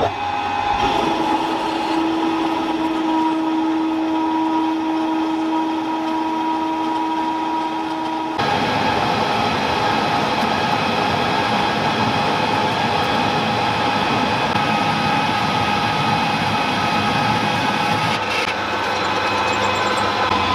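Metal lathe turning a steel shaft with a carbide insert tool, taking roughing cuts. It runs steadily with a high whine of several steady tones, then changes abruptly about eight seconds in to a harsher, noisier cutting sound.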